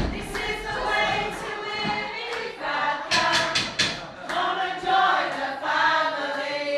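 A small amateur choir of women singing together.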